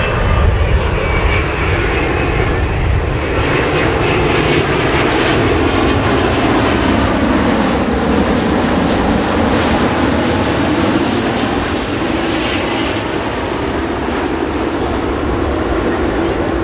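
Boeing 787-9 airliner with Rolls-Royce Trent 1000 turbofans passing close overhead on final approach with gear down. It makes a loud, steady jet rumble whose pitch shifts slowly as it goes by.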